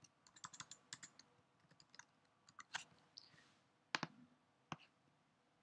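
Light keystrokes on a computer keyboard for the first three seconds, then a louder, sharp mouse click about four seconds in and a second click a moment later.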